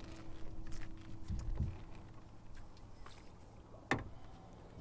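Bumps and knocks on a fishing boat as a hooked Murray cod is brought to a landing net: two dull thuds about a second and a half in, then one sharp knock near the end, the loudest sound. A low steady hum runs under the first half and stops.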